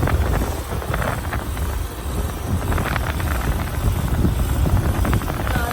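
A 2016 Keeprite 4-ton central air conditioner condenser running, with a steady low hum from the compressor and fan and irregular rattling over it. The unit is shaking badly.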